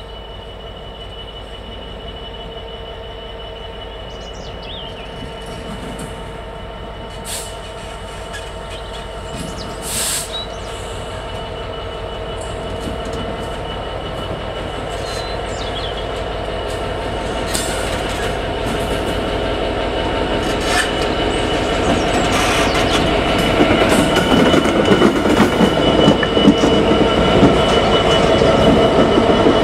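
GB Railfreight Class 66 diesel locomotive and its train of coaches approaching slowly and passing close by: the two-stroke diesel engine runs steadily under a high, steady whine, with the wheels squealing. The sound grows louder throughout as the train draws near.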